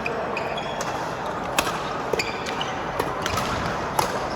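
Badminton rally: sharp cracks of rackets striking the shuttlecock, about one every second, over the steady background noise of a sports hall.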